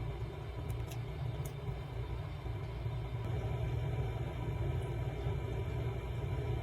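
Steady low background rumble, with a few faint light ticks about a second in.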